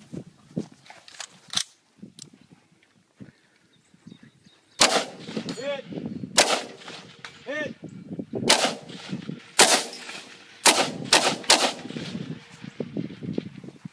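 Rifle fired close by in a shooting stage: about seven sharp shots, starting about five seconds in at uneven spacing, the last three in quick succession.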